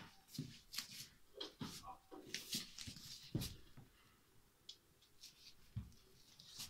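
Russian Tsvetnaya Bolonka puppies moving about on foam floor mats: faint, scattered scuffs and taps.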